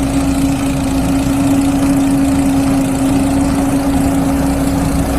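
Road-roller engine idling steadily with one constant hum over an even rumble.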